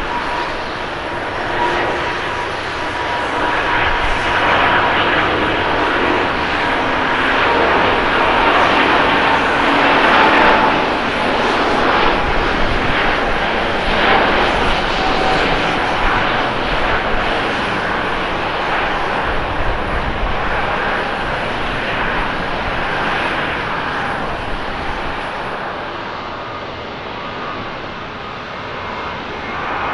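Airbus A350-900 jet airliner taking off, its Rolls-Royce Trent XWB engines at takeoff power through the roll and lift-off, the jet noise swelling to its loudest about ten seconds in and then slowly fading. Near the end it gives way to the quieter, more distant jet noise of a Boeing 737-800 on the runway.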